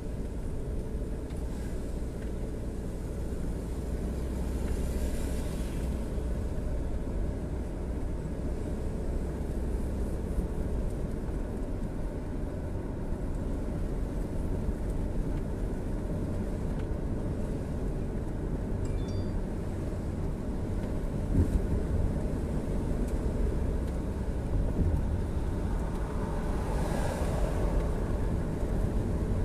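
Steady low rumble of road and engine noise inside a moving car, with brief swells of hiss about five seconds in and again near the end.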